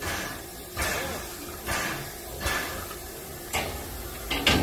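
Narrow-gauge steam tank locomotive 99 7247-2 standing with steam rising from its chimney, giving a rhythmic puffing about once a second, with a louder puff near the end.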